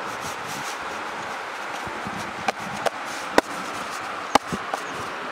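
Hands working a lump of dough bait on a steel plate, with about five sharp clicks and taps against the plate between two and a half and five seconds in, over a steady rushing hiss.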